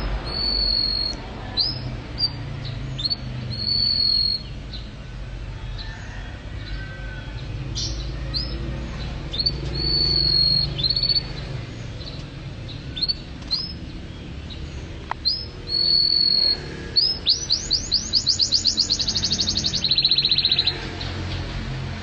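A songbird singing: repeated high whistled notes that sweep up and then hold, and about three-quarters of the way through, a fast trill of rapidly repeated notes. A low rumble runs underneath.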